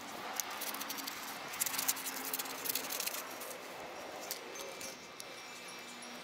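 Small hand trowel scraping and digging through loose driveway gravel, the pebbles clicking and rattling in quick irregular bursts that thin out in the last couple of seconds.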